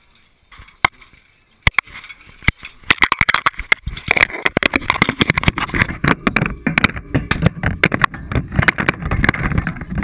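Handling noise of a camera being set into a dishwasher's wire rack: a few sharp knocks, then a dense run of clicking and rattling against the rack, cutting off suddenly near the end.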